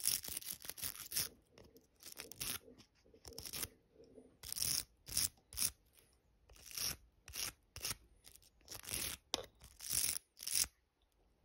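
Small brush wet with alcohol scrubbing the water-damaged display circuit board of a Xiaomi 365 electric scooter: around twenty short scratchy strokes, unevenly spaced, as the bristles work the corrosion off the board.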